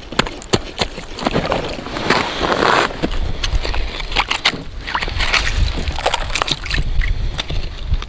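Ice scoop skimming slush and ice chips out of an ice-fishing hole: repeated crunching and scraping with water sloshing, over a low rumble of wind on the microphone.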